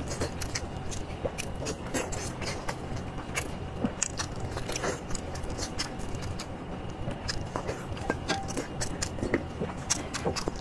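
Close-miked biting and chewing of a large boiled egg coated in chili oil: many short, irregular wet clicks and smacks from the mouth, with squelching as the sauce-soaked pieces are handled in plastic gloves.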